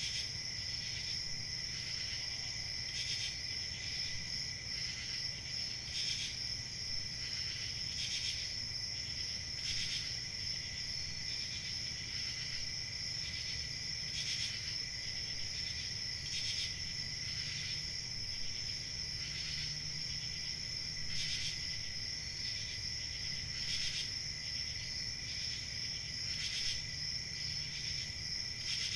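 Crickets chirping in a steady, continuous chorus, with a high trill that never lets up and a lower trill under it, and louder chirps every second or two. A faint low hum runs underneath.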